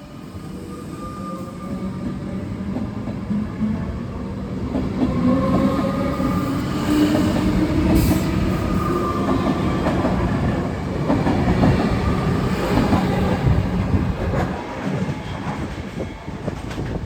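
Comeng electric suburban train pulling away and gathering speed: the traction motor whine rises steadily in pitch. It grows louder as the carriages pass close by, wheels clattering over the rail joints.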